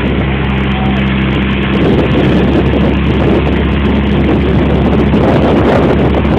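Motorboat engine running steadily under a loud, even rushing noise, the engine hum clearest in the first couple of seconds.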